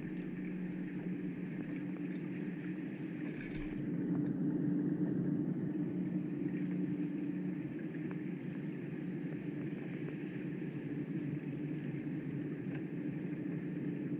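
Muffled underwater harbour ambience picked up by a GoPro in its waterproof housing: a steady low hum with two held tones over a dull wash, a little louder from about four seconds in.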